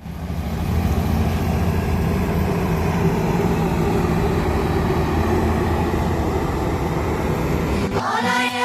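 Combine harvester running steadily at working speed, a dense mechanical drone with a strong low hum. It cuts off about eight seconds in as music starts.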